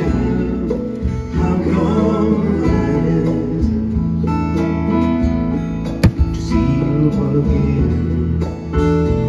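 Live band music led by a strummed acoustic guitar. One sharp click sounds about six seconds in.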